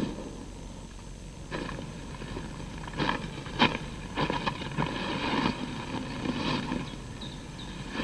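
Footsteps and rustling in dry forest undergrowth: a series of separate crunches and knocks, the loudest a little after three seconds in, over a faint steady low hum.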